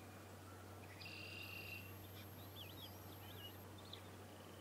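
Faint, high songbird song: a short buzzy phrase about a second in, then a few quick wavering whistled notes, over a steady low electrical hum.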